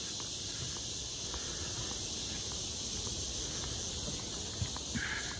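Steady high-pitched chorus of insects in tropical forest, with faint footsteps ticking along a boardwalk about twice a second.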